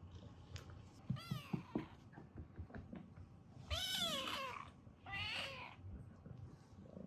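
Kitten meowing three times: a short call about a second in, then a longer meow that falls in pitch at its end, and a shorter one just after, with a few faint knocks.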